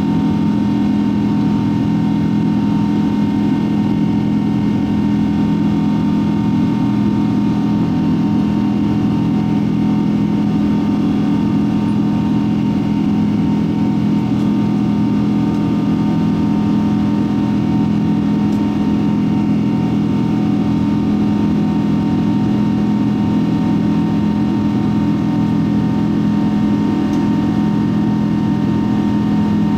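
Cabin drone of a Boeing 777-200's Pratt & Whitney PW4000 turbofans at climb power, mixed with the rush of airflow, heard inside the cabin. A steady low hum with a few held tones over an even rush, unchanging throughout.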